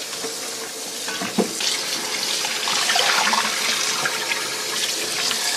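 Hot water running into a basin of chopped cured pork ribs to rinse them, with a steady splashing hiss that grows louder about a second and a half in.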